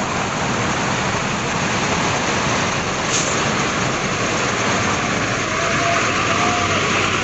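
Steady rumble of a coach bus's engine and surrounding traffic as buses pull out of a terminal.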